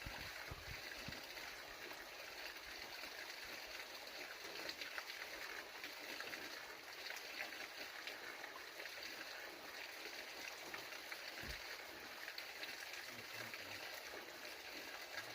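Steady rushing of a mountain waterfall, with a few faint low thumps near the start and again past the middle.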